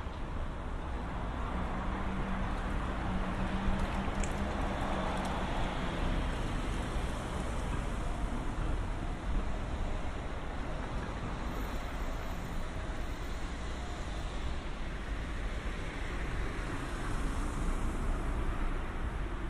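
Road traffic: cars passing on a street over a steady low rumble. One swells up and fades a few seconds in, and another near the end.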